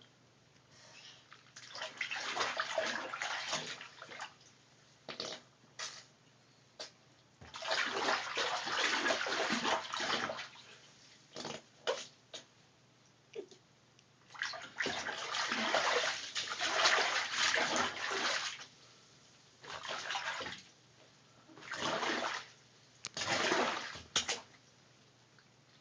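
A run of fart sounds: several long, noisy, spluttering blasts of two to four seconds each, with short pops in between.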